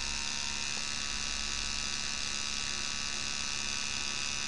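Steady electrical hum with a high, even whine above it, unchanged throughout.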